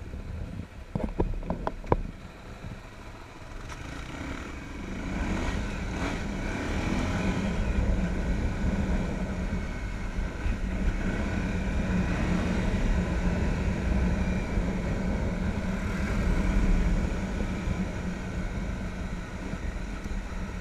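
Motorcycle engine pulling away from a stop and running at road speed, with a steady low engine note and wind noise on the microphone; the sound grows louder from about four seconds in. A few sharp knocks come about a second in.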